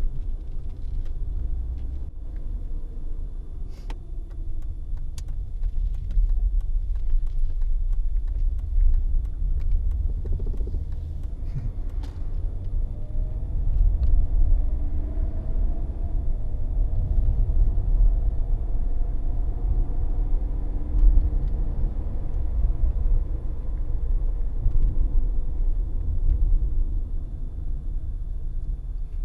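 In-cabin sound of a Mercedes-Benz W124 300E-24 with its 3.0-litre 24-valve straight-six being driven: steady low road and drivetrain rumble, with the engine note rising and falling as it accelerates midway, and a few light clicks. The car has a knock from underneath that the driver and mechanic take for the propeller shaft.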